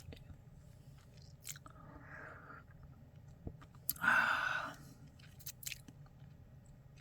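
Mouth sounds of someone tasting a strong brew of Wuyi rock tea: a short noisy sip about four seconds in, with a fainter one around two seconds and a few small clicks.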